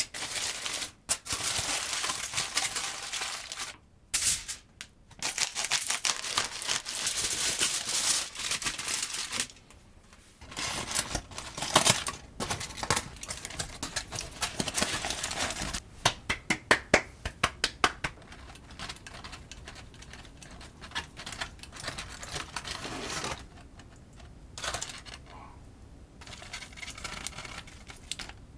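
Kitchen food-preparation sounds: long stretches of dense crackling that stop and start, then a quick run of sharp clicks about halfway through, and quieter scattered noises near the end.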